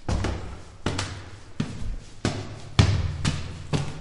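Footsteps climbing stone stairs: a sharp step about every two-thirds of a second, each followed by a short echo.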